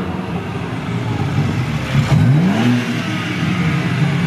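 BMW G80 M3's S58 twin-turbo straight-six, fitted with aftermarket intakes and downpipes, being revved while the car stands still. A rev rises and falls about two seconds in, with steadier running either side.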